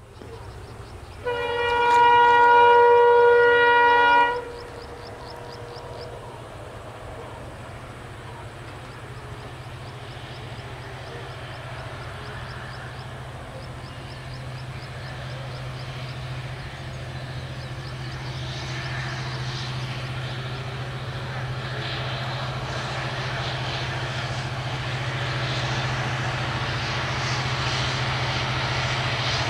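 Class M11 diesel locomotive's horn sounds one long blast of about three seconds, a second or so in. After it the locomotive's diesel engine drones steadily, and the rumble of the train grows louder as it approaches.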